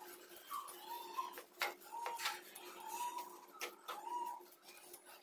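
Metal spatula stirring grated carrots and sugar in a nonstick pan, clicking sharply against the pan several times, with short faint squeaky tones in between.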